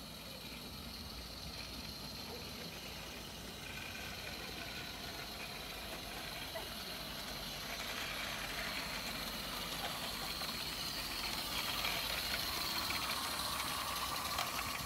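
Garden-scale model train running on the track, getting gradually louder as it comes nearer, with a busier hiss from about halfway through.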